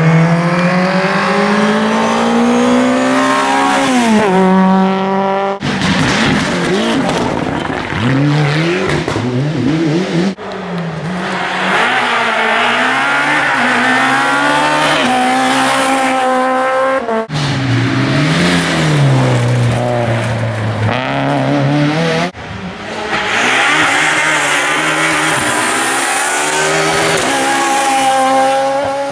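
A string of rally cars driven flat out, one after another with abrupt cuts between them, among them a Peugeot 106 and a Peugeot 206: engines revving high, their pitch climbing under acceleration and dropping sharply at each gear change or lift.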